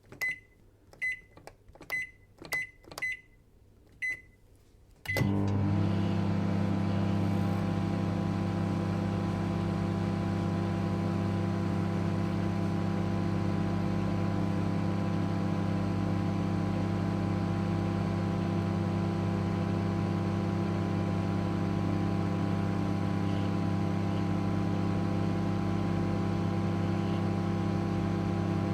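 Microwave oven being switched on: a series of short high keypad beeps, then about five seconds in the oven starts with a steady low hum and fan whir that runs on evenly.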